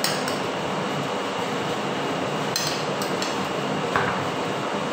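A metal spoon and fork clink and scrape against a ceramic plate a few times, then the plate is set down on the table with a ringing clink about four seconds in. A steady background noise runs under it all.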